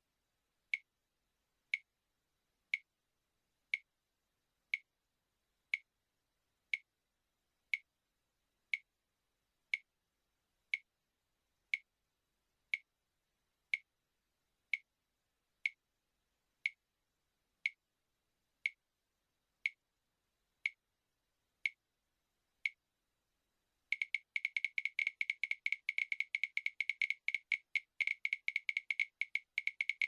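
Sharp, high clicks, about one a second with silence between them; near the end they speed up into a fast rattling run of clicks.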